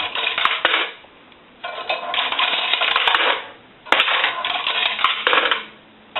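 Loose coins (quarters, nickels and dimes) rattling and clinking as they drop into a Western Electric payphone's coin box. They come in three bursts of about one to two seconds each.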